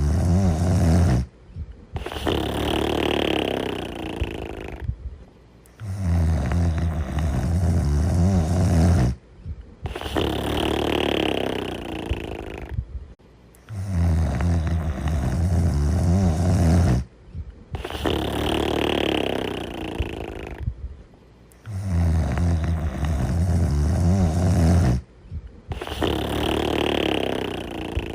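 Deep snoring in a steady rhythm, a breath about every eight seconds. Each cycle is a low, buzzing snore lasting about three seconds, followed after a short pause by a softer, airy breath.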